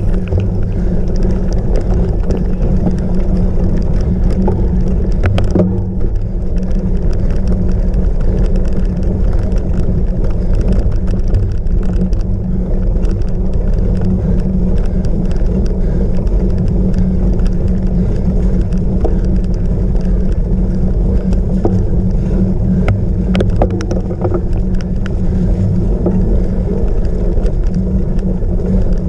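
Cyclocross bike ridden fast over rough ground: a steady, loud rush of wind on the microphone with tyre rumble, and a few sharp rattles from the bike about five seconds in and again near the end.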